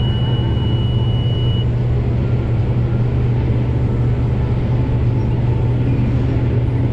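Combine harvester running steadily under load while harvesting corn, a constant low engine drone. A thin high steady tone sounds over it and stops about a second and a half in.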